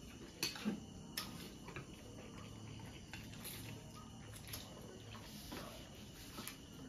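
Faint eating sounds: spicy instant noodles being slurped and chewed, with scattered short clicks and smacks.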